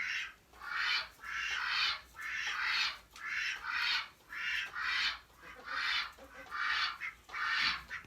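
A domestic duck quacking over and over, about ten harsh quacks in a steady series a little under a second apart.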